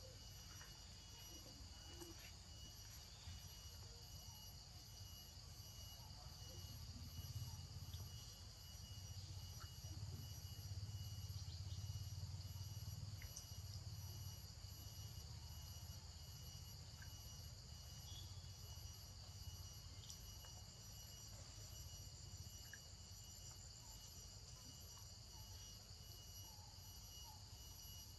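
Faint, steady high-pitched insect chorus in forest, with a low rumble swelling for several seconds in the middle.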